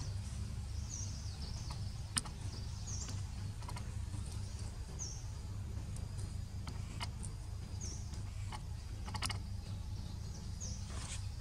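Forest ambience: short high bird chirps every couple of seconds over a steady low rumble, with a sharp click about two seconds in and another near the end.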